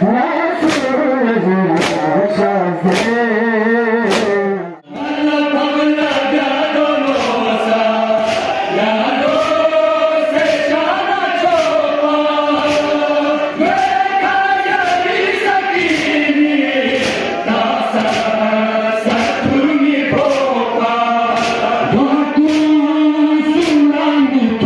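Male voices chanting a Balti noha, a Shia mourning lament, with a crowd beating their chests in time, about one and a half slaps a second. The sound drops out briefly about five seconds in, then the chant resumes led by a reciter on a microphone, the chest-beating still keeping the beat.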